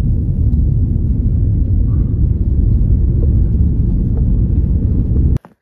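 Road noise inside a moving vehicle: a steady low rumble of engine and tyres on a snow-packed road. It cuts off suddenly near the end.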